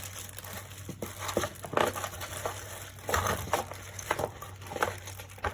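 Packaging being handled: irregular crinkling and rustling with small clicks and knocks, as the keyboard's separate stick-on feet accessory is taken out.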